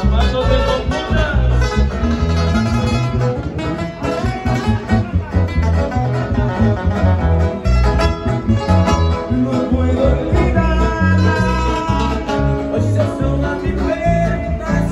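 Live Tierra Caliente regional Mexican music: a band playing electric bass and acoustic guitar, with a steady pulsing bass line and a man singing a romantic song into the microphone.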